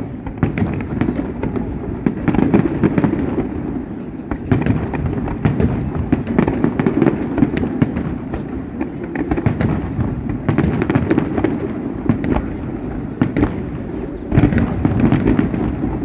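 Fireworks display: dense, continuous crackling and banging with many reports overlapping, over a steady rumble, growing louder near the end.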